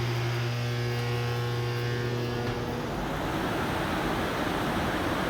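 Electric shop machine running: a steady motor hum that cuts out about two and a half seconds in, over a steady rushing noise that carries on.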